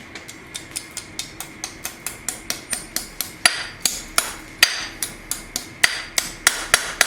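Hand hammer striking hot steel on an anvil in a steady rhythm of about three blows a second, curling the knife's handle end into a scroll. The blows are light at first and turn heavier and more ringing from about halfway.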